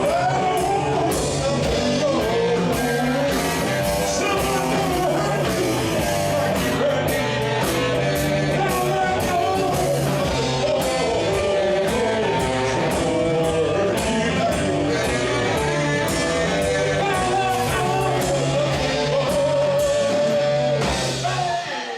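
Live band playing rock music, with a singer and guitar.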